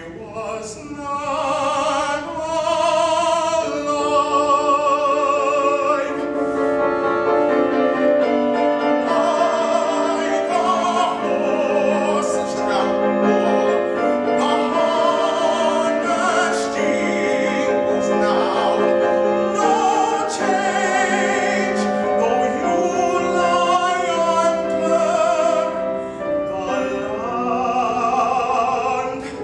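Tenor singing an English art song in classical style with strong vibrato and long held notes, accompanied by piano.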